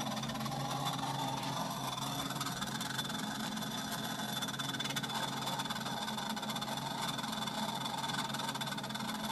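Treadmill running steadily, its motor whirring with a constant hum and a higher steady whine, making a weird noise; its belt has become very tight and runs crooked.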